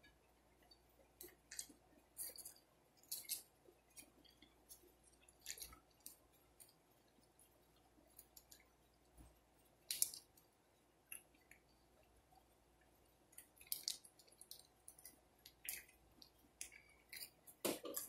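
Close-miked mouth sounds of eating crisp fried rolls: chewing and lip-smacking, a string of short crackles and smacks with quiet pauses between them, coming thicker near the end.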